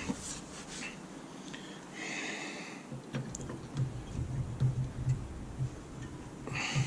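Short metallic scrapes and clicks as a rear disc-brake pad with an anti-squeal shim is worked into the caliper bracket. There are three scraping bursts: at the start, around two seconds in, and near the end.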